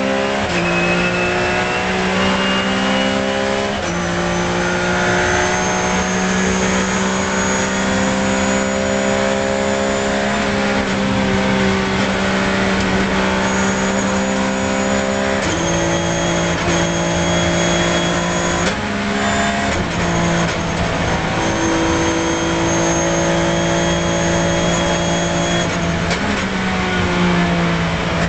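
Porsche 997 GT3 Cup's flat-six engine running hard at high revs, heard from inside the race car's cockpit. Its pitch steps up and down several times with gear changes, and a thin high whine rides over it.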